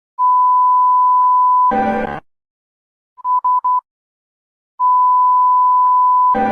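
EAS-style emergency alert alarm: a steady beep tone held about a second and a half, broken off by a short harsh buzz, then a quick cluster of about four short beeps. The long tone and buzz come round again near the end.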